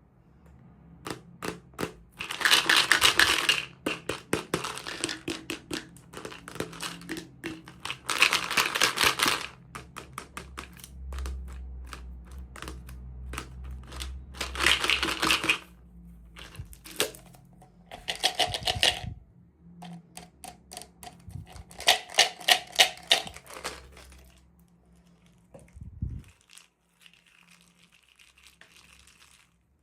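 Toy packaging being unwrapped by hand: about five bursts of crinkling and tearing, with many small clicks and taps in between.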